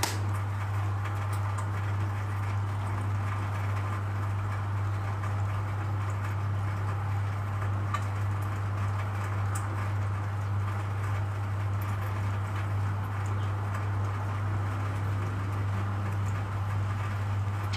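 Steady low hum with an even background hiss, unchanging throughout, with a few faint ticks.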